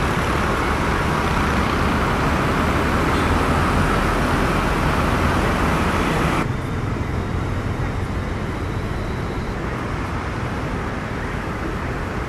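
Steady, loud rush of airliner engines on a runway, a Turkish Airlines Airbus A330 rolling out with twin turboprops taxiing nearby. About six and a half seconds in the sound cuts off abruptly to a quieter, duller rush of more distant aircraft engines.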